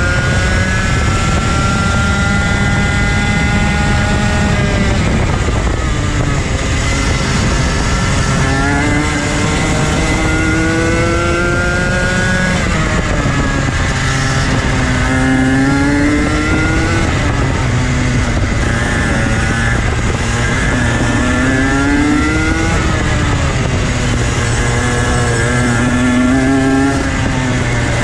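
Two-stroke TaG kart engine at race pace. Its pitch climbs along each straight and falls away when the throttle comes off for the corners, about five times.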